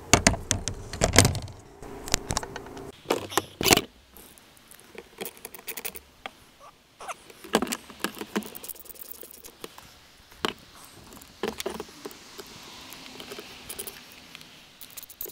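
Small metal screws clinking and rattling as they are rummaged and picked out of a container, a busy clatter for the first few seconds, then scattered lighter clicks.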